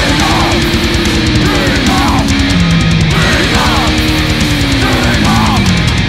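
A heavy metal band playing live: distorted electric guitars and fast, dense drumming, with long held notes that bend and slide in pitch.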